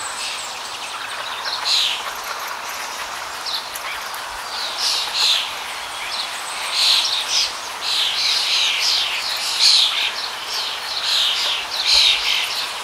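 Small birds chirping and twittering, short high calls coming in quick runs one after another, over a steady background hiss.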